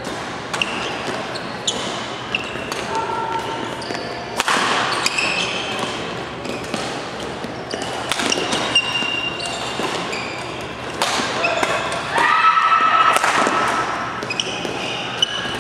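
Badminton rally in a large reverberant hall: sharp racket strikes on the shuttlecock and thuds of footwork, with court shoes squeaking on the floor in short, high squeals.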